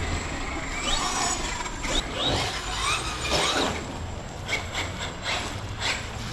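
Electric RC cars' motors whining, rising and falling quickly in pitch as they rev and accelerate, followed in the later seconds by a run of short sharp clicks and knocks.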